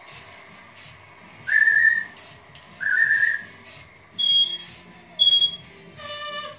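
A Congo African grey parrot whistling, four short clear whistles: two lower ones, then two higher ones, the loudest sounds. Underneath, a string of short hissing bursts from a spray paint can being dabbed onto the painting.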